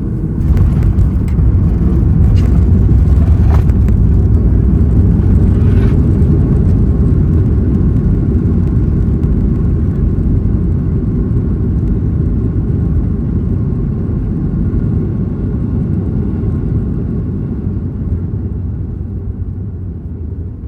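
Boeing 737 MAX 8 cabin rumble heard from a window seat during landing: the rumble jumps up about half a second in, with a few rattles and clunks over the next several seconds, then slowly dies down as the aircraft slows on the runway.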